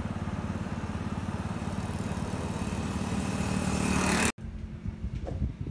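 A small engine running with a fast, even pulse, growing louder until it cuts off abruptly about four seconds in. A quieter, mixed background follows.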